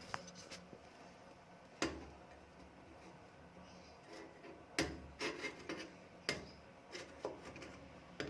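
Several separate clicks and knocks from hands handling objects, spread unevenly over the stretch with short gaps of quiet between them.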